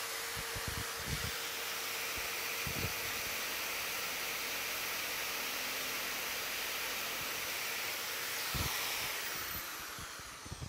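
Electric drill clamped in a shop-made horizontal borer running at a steady speed while it bores into the end grain of a softwood batten, with a few low knocks as the wood is handled. Near the end the drill is switched off and winds down with a falling whine.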